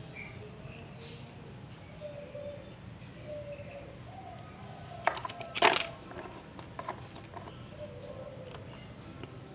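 Handling noise: a quick run of sharp clicks and knocks a little past the middle, the loudest just before six seconds in, over a steady low hum.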